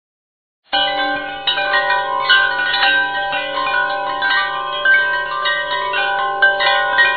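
Chime sound effect: a cluster of metal chimes ringing, struck again and again at irregular moments so that many notes overlap. It starts abruptly out of silence about a second in and stops abruptly at the end.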